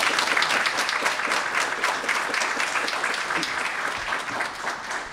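Audience applauding: many people clapping at once, the applause slowly tapering off near the end.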